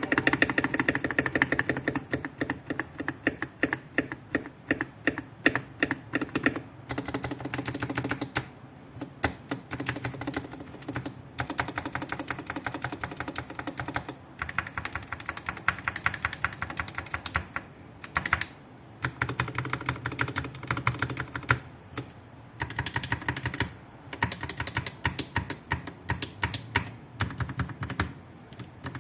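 Rapid clacking of keys on a mechanical keyboard, like fast typing, coming in runs with a few short pauses. The board has lubed Gateron Milky Yellow linear switches and PBT keycaps.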